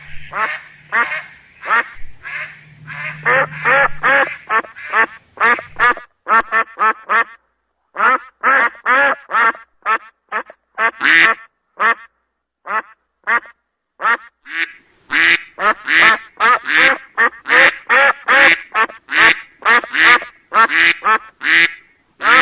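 Ducks quacking in quick runs of short, repeated calls, with a brief pause about seven seconds in.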